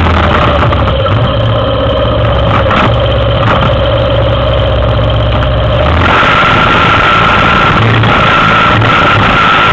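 Yamaha Big Bear 400 ATV's single-cylinder four-stroke engine idling steadily; its sound changes about six seconds in.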